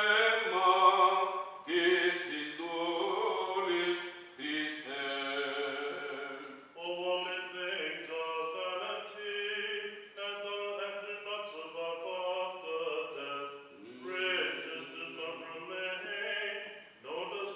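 A male voice chanting Greek Orthodox liturgical prayers in Byzantine style: sustained melodic phrases in Greek with brief pauses between them.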